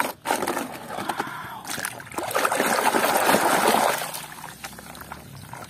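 Muddy water sloshing and splashing in a basin as a plastic toy train is swished and scrubbed by hand, loudest in the middle and fading near the end. A few light knocks at the very start.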